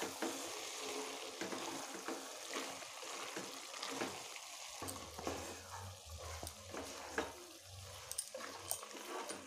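A spatula stirring and scraping vegetable masala around a pot, with many small irregular scrapes and knocks over a soft sizzle of the vegetables frying in oil.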